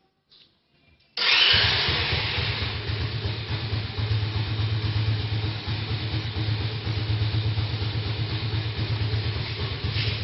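Near silence, then about a second in an engine starts to be heard, running steadily with a low rumble and fast, even pulsing.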